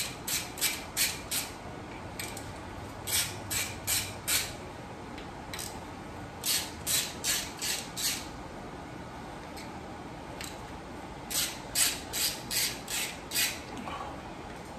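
Hand ratchet clicking as it is swung back between turns, breaking loose the Allen bolts of a motorcycle cam chest cover. The clicks come in runs of four to six, about three a second, with short pauses between the runs.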